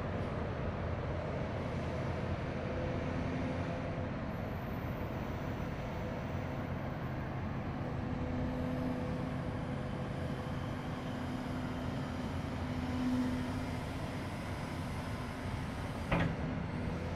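Kobelco SK350LC-10 crawler excavator running steadily, its diesel engine and hydraulics humming with tones that swell as the boom, arm and bucket are worked. There is a single sharp click near the end.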